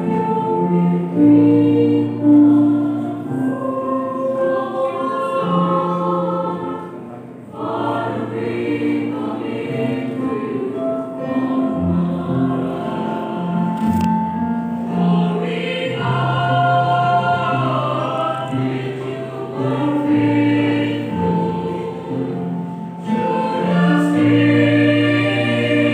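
A choir singing a hymn in long held phrases, with short breaks between lines.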